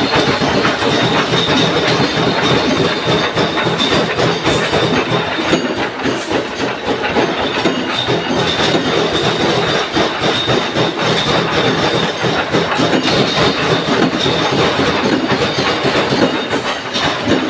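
Ring-plate punch press running continuously, its strokes blurring into a rapid, steady metallic clatter with a thin high whine over it.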